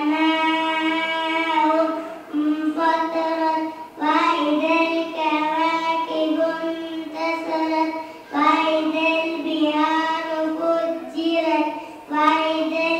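A young girl's voice reciting the Quran in a melodic, chant-like style into a microphone. She holds long, drawn-out notes in phrases of a few seconds each, with short breaths between them.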